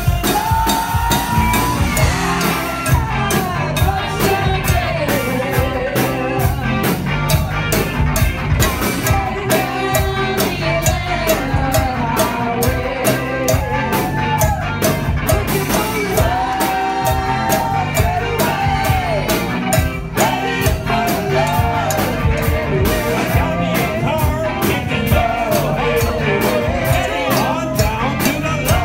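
Live rock band playing: singing over electric guitar and drums, with a cowbell struck in a steady rhythm on the beat.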